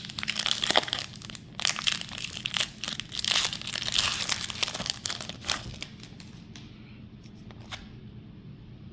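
Foil wrapper of a Pokémon booster pack crinkling and tearing as it is opened by hand, busy for about six seconds and then dying down to a few light clicks.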